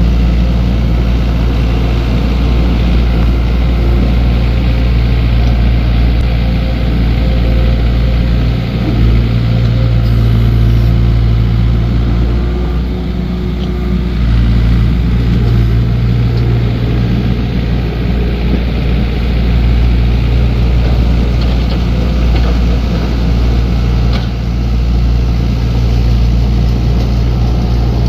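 Heavy-equipment diesel engine running steadily while working, with its note shifting briefly about a third of the way in.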